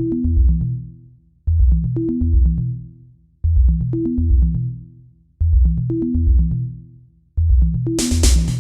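Electronic background music: a deep bass and drum-machine beat in a phrase that repeats every two seconds, with a short two-note synth figure, and bright hi-hat-like hiss joining near the end.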